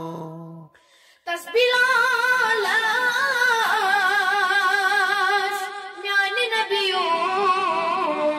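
A boy singing a Kashmiri naat, unaccompanied, in a high voice with a fast wavering ornament on the notes. He breaks off for a moment about a second in, then comes back in and carries the melody on.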